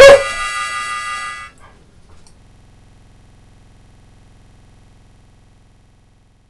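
Blues harmonica music: a note bent upward into a loud held chord that stops about a second and a half in, followed by a faint low hum that fades away.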